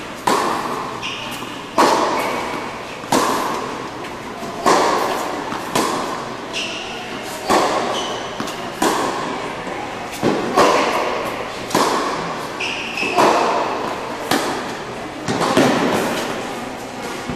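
Tennis ball being hit back and forth in a rally on an indoor hard court: sharp racquet strikes and ball bounces about every one to one and a half seconds, each ringing out in the echo of the large hall.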